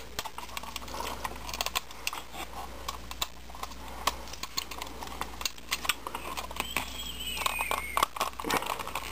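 Hard plastic clicking and rattling of a Transformers Voyager-class Bludgeon figure being handled and its tank treads and parts being popped out, many small sharp clicks in an irregular run.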